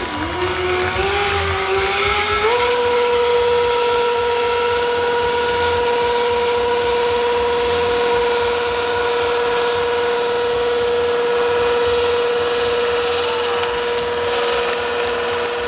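Stunt motorcycle engine held at high revs during a burnout, rear tyre spinning in its own smoke. The pitch wavers upward for the first couple of seconds, then steps up and holds steady.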